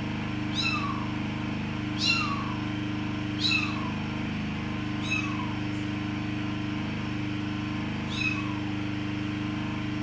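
Young kitten mewing: about five short, high calls that each fall in pitch, roughly every second and a half, with a longer pause before the last. A steady low hum runs underneath.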